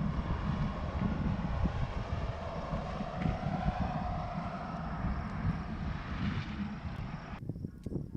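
Steady engine drone with a low rumble and slowly gliding pitch. It cuts off abruptly about seven seconds in, giving way to a quieter stretch with sharp clicks.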